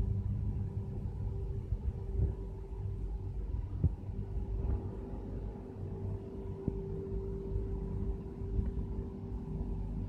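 Steady hum of fiber laser cutting machinery and its cooling equipment: a low rumble under a constant mid-pitched tone, with a couple of brief knocks about four and seven seconds in.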